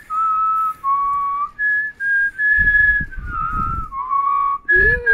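Whistling in clear held notes that step between higher and lower pitches, like a tune. Low rumbling bumps come through the middle.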